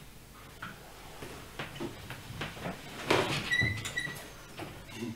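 Knocks, clicks and rustling of a wheeled stand-up transfer aid being handled as a person sits down from it onto a bed, with a short squeak twice about three and a half seconds in.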